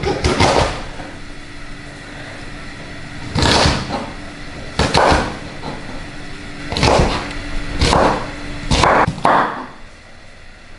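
Chef's knife slicing through fresh asparagus spears into rounds and striking a wooden cutting board. The strikes come one at a time, irregularly, a second or more apart, with two closer together near the end.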